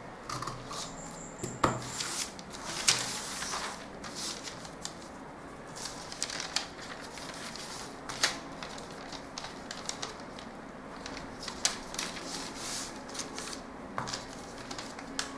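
Scissors cutting through brown pattern paper near the start, then stiff paper pieces rustling and sliding on a table as they are moved and lined up, with scattered sharp clicks and taps.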